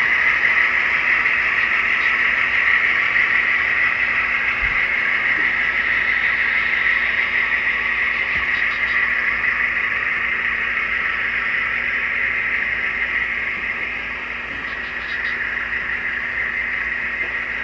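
Model freight train running along its track: a steady whir of wheels and motor that slowly fades as it moves away, with a few faint clicks.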